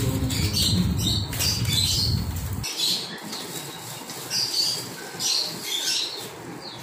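Plastic bags and aluminium foil trays crinkling and rustling as food is handled and packed by hand. A low rumble sits under it for the first few seconds and cuts off suddenly.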